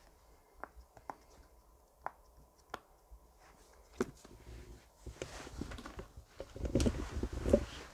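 Bubbles of a silicone pop-it fidget toy being pressed: about five soft, separate pops over the first four seconds. Then a few seconds of handling and rustling, loudest near the end.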